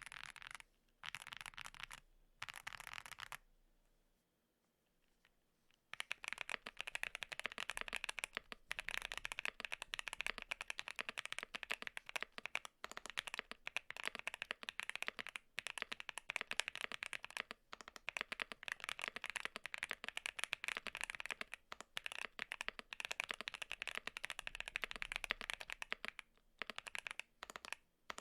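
Fast typing on a custom mechanical keyboard fitted with Zuoce Studio Rococo tactile switches: a dense run of quick keystroke clacks on a Mammoth75, a pause of a couple of seconds, then continuous rapid typing on a QK65.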